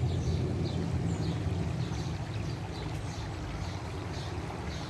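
Water trickling and splashing from a small garden fountain over a steady low rumble, with a few short high chirps scattered through.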